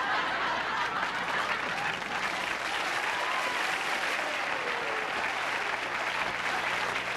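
Studio audience applauding steadily, dense clapping throughout, with a faint voice or two rising out of it midway.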